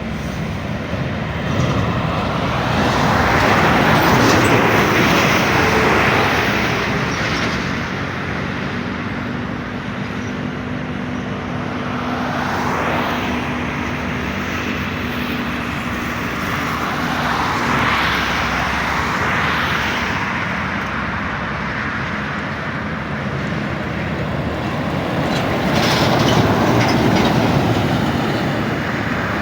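Road traffic: large vehicles, buses among them, passing one after another, their engine and tyre noise swelling and fading four times.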